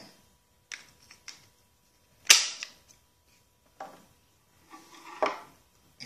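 Renault Clio door lock mechanism clicking and knocking as it is handled, with a few separate sharp clicks and one loud sharp snap a little over two seconds in.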